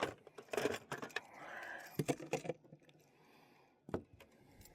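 Irregular clicks, knocks and light rattles of a fish and fishing gear being handled on a boat.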